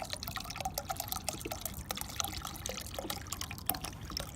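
CLR rust remover trickling from its bottle into a steel jerry can already full of water, with a dense run of small drips and plinks.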